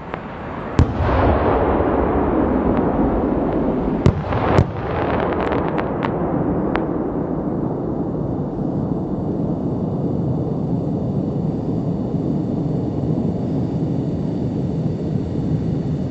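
A 200 mm aerial firework shell bursting: a sharp bang about a second in, two more loud reports around four seconds in and a few smaller cracks, over a long, steady rush of noise that does not die away.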